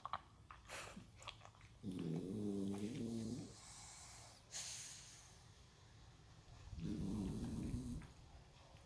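A dog snoring in its sleep: two drawn-out snores about five seconds apart, each lasting a second or so, the first followed by a breathy exhale.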